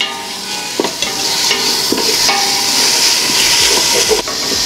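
Chopped mint and coriander leaves sizzling with onions in hot oil in a metal pot, stirred with a wooden spatula that scrapes and knocks against the pot a few times.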